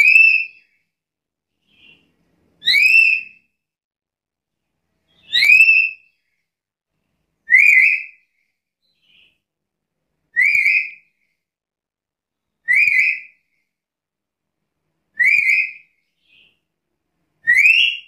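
Black-capped lory (Lorius lory) giving a series of rising whistled calls, eight in all, about one every two and a half seconds, each roughly half a second long. A faint short note sounds in a few of the gaps.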